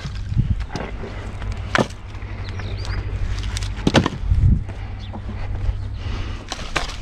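Split firewood knocking and clattering as pieces are picked from a pile and stacked by hand, with a few sharp wood-on-wood knocks and a dull thud.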